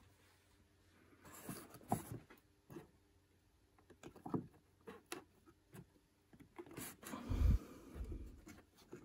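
Faint handling noise of fingers pushing a wire into the solder lugs of a push-pull potentiometer and bending it into place: scattered small clicks and rubbing, with a low thump about seven seconds in.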